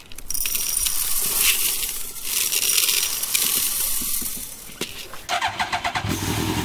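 A stream of small plastic airsoft BBs pouring with a hissing rattle into a metal motorcycle silencer for about four seconds. Near the end, the Yamaha R1's engine is cranked by the starter in quick even pulses.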